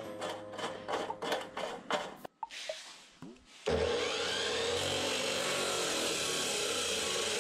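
A quick run of clicks and clatter as the abrasive cut-off saw is set up. Then, a little over halfway through, the saw starts suddenly and grinds through steel tubing with a steady loud rasp, its whine rising as the motor spins up and then holding steady.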